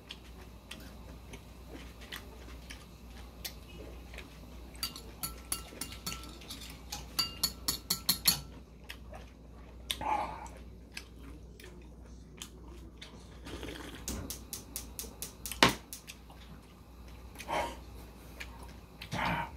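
Metal chopsticks clicking against a ceramic bowl in quick clusters while picking up food, with chewing between.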